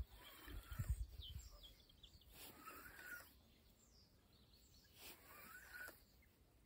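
Near silence outdoors with faint bird calls, a few short chirps scattered through it, and a brief cluster of low thumps on the microphone about a second in.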